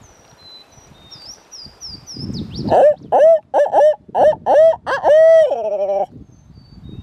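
A barred-owl-style hooting call, as a turkey hunter's owl locator call: a quick run of short hoots, loud and close, ending in one long drawn-out hoot that drops at the end. A small bird sings faintly before it.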